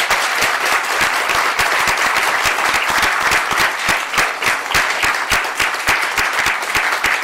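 Audience applauding: a dense, steady round of many hands clapping.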